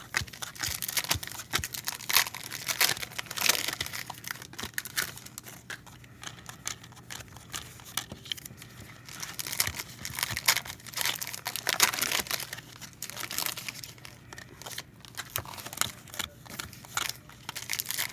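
Wrappers of trading-card packs crinkling and tearing as they are ripped open and handled, in a run of irregular crackles, over a faint steady hum.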